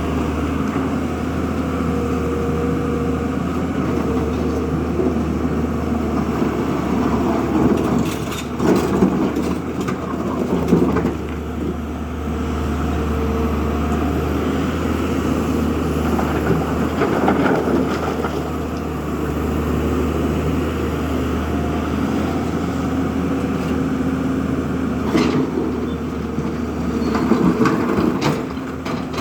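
Diesel engine of a JCB 3DX backhoe loader running steadily under work, with a low hum and several short knocks and clatters at intervals.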